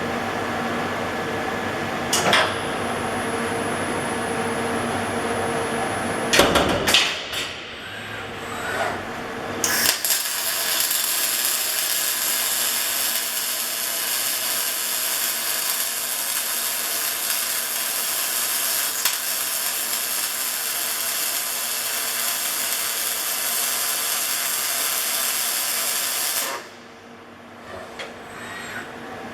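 Panasonic VR-006 welding robot arc welding: a steady, dense hiss of the arc that starts about ten seconds in, runs for roughly sixteen seconds and cuts off suddenly. Before it there is a machine hum with a few clicks and knocks.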